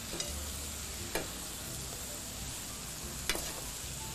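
Liver, onions and bell peppers sizzling in a hot pan as they are stirred, with a few knocks of the utensils against the pan, the loudest about three seconds in.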